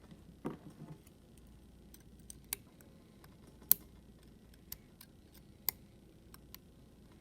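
Scattered sharp clicks and taps of small metal parts and tools being handled while a Yale Superior euro cylinder is worked apart by hand, with a short low sound about half a second in.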